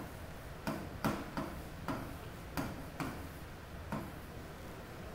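Writing taps on the glass of an interactive touchscreen display as a word is handwritten on it: short sharp clicks at uneven intervals, about eight in the stretch.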